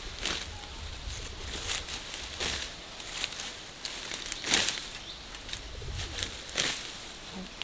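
Grass being cut and gathered by hand: several irregular swishing, rustling strokes through grass stalks, the loudest about halfway through.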